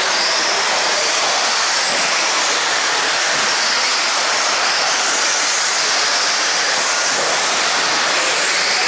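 Several electric 2WD RC buggies racing on an indoor dirt track: a steady hiss of motors and tyres with a high, wavering whine.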